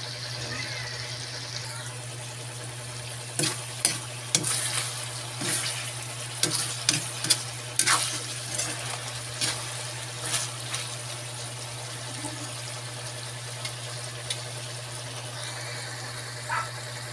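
Chicken and pineapple tidbits sizzling in oil and syrupy sauce in a pan near the end of cooking, with a metal spatula clattering and scraping against the pan in quick knocks from about three to eleven seconds in. A steady low hum runs underneath.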